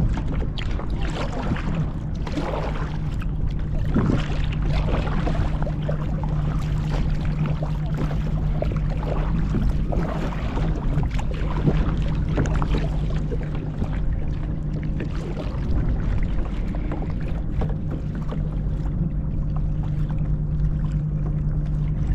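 A kayak being paddled, with the paddle blades dipping and splashing in irregular strokes over a steady low rumble of wind on the microphone and a constant low hum.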